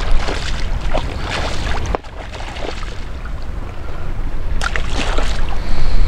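Wind buffeting the microphone over choppy lake water, with waves lapping and sloshing; a few louder sloshes about a second in and again near the end.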